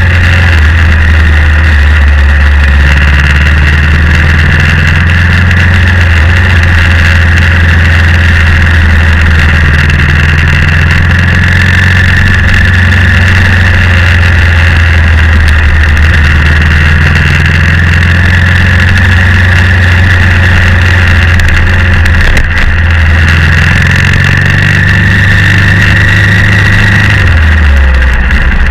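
BMW G650X motorcycle's single-cylinder engine running steadily while ridden along the road, its note falling near the end as the bike slows.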